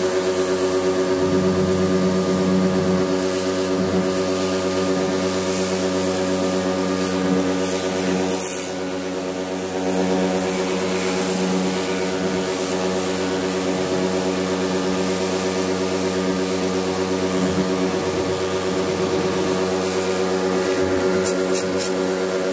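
Electric pressure washer running steadily, its motor and pump humming under load while the water jet hisses against the air conditioner's coil fins. The level dips briefly around nine seconds in.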